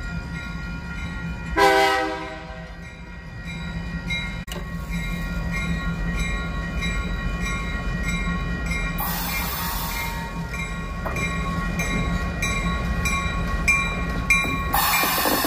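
A New Orleans Public Belt diesel locomotive approaching on street track, its engine running steadily. A short horn blast about two seconds in is the loudest sound. A regular ringing repeats through the middle, and louder rushing wheel and engine noise comes in near the end as the locomotive draws level.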